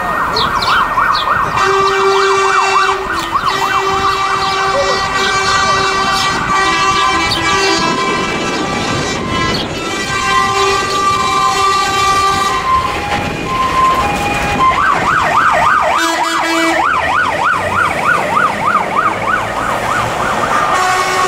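Fire engine sirens on an emergency run: a fast warbling yelp, then a stretch of steady held tones that step between pitches, then the fast yelp again about fifteen seconds in.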